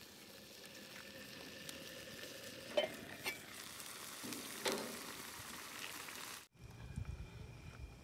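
Meat and potato chunks sizzling in a frying pan over an open flame, a steady hiss with two sharp knocks about three and five seconds in. The sizzle stops suddenly after about six and a half seconds.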